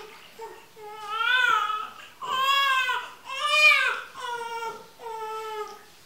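A newborn baby crying while being bathed: about five cries in a row, each bending up then down in pitch, the loudest about halfway through.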